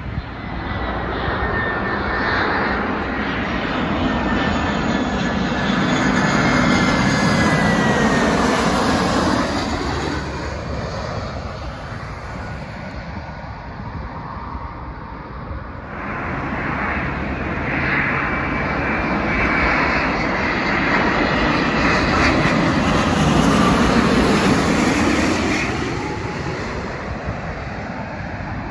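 Jet airliners passing low on approach, one after the other. An Aer Lingus Airbus A320's engines swell and fade with a high whine sliding down in pitch. After an abrupt change a little past halfway, a second airliner on short final approach grows loud with a high whine, loudest near the end, then starts to fade.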